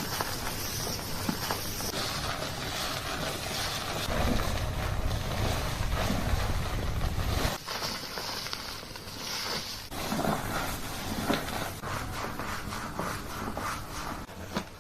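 Close-miked hair washing: fingers rubbing and scratching through hair at the scalp, a rough rustling noise full of small crackles. A low rumble rises about four seconds in and stops a few seconds later.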